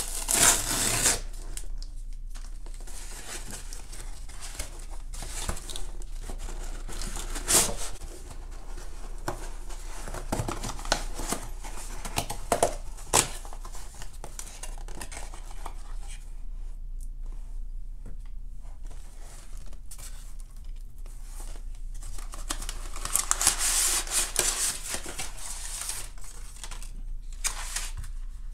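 Tape being peeled and a cardboard mailing box torn open, then crumpled kraft packing paper rustling as the contents are lifted out. Sharp rips come near the start and about 7 and 13 seconds in, with a longer rustle about 24 seconds in.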